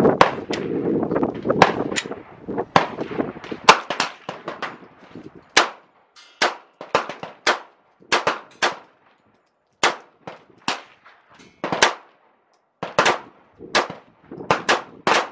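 Pistol shots on an outdoor firing line: single sharp cracks, irregularly spaced, some close together and some a second or more apart. The shots come from the shooter's handgun and from other guns firing along the line.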